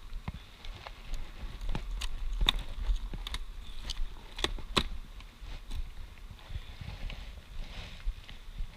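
Irregular wooden knocks and clicks as Langstroth hive boxes and frames are handled and set down, over a low rumble.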